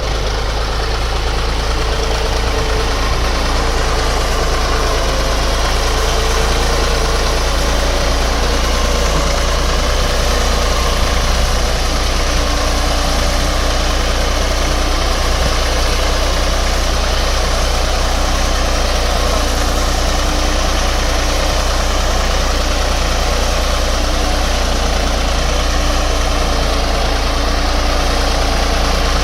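HMT 4511 tractor's diesel engine running steadily while the tractor pulls a plough through the soil.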